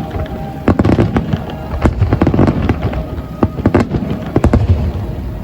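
Fireworks bursting in rapid, irregular succession: a dense run of sharp bangs and crackles over a deep rumble.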